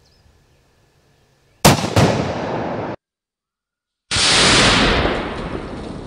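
A 7.62x39 bolt-action rifle shot, followed about a third of a second later by the boom of an exploding target about 80 yards downrange, the two ringing out together. After an abrupt second of dead silence, a loud explosion boom cuts in and rumbles as it slowly fades.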